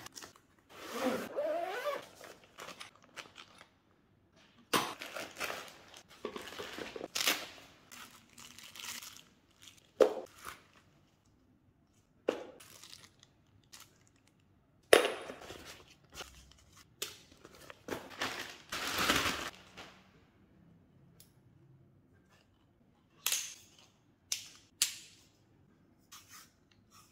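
Cardboard box and plastic packaging rustling and crinkling as a tripod is unpacked, with scattered knocks. Near the end come several short sharp clicks as the carbon-fibre tripod is handled.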